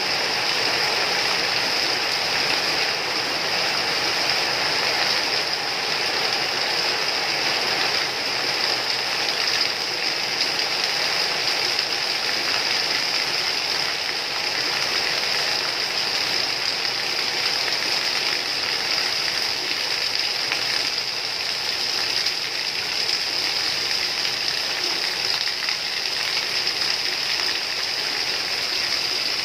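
Steady rain falling, an even hiss of water with no let-up.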